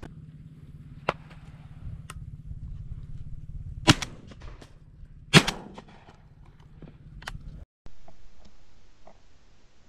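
Two shotgun shots from a Remington 1100 semi-automatic, about a second and a half apart, with the spent shell ejecting after the first. Under them runs a low steady hum that cuts off suddenly near the end.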